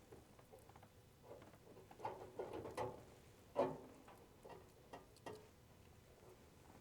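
Faint, scattered light clicks and soft knocks, bunched together about two seconds in, with one louder knock a little after the middle.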